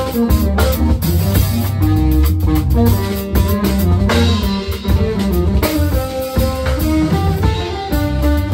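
Live band playing: a hollow-body electric guitar plays a busy melodic line over electric bass and a drum kit, with the cymbals getting louder about halfway through.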